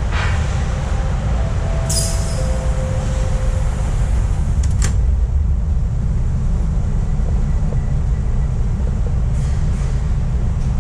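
TTC Line 2 subway train in motion, heard from inside the car: a steady low rumble of wheels on rail, with a few brief sharp clicks about two seconds in and again near five seconds.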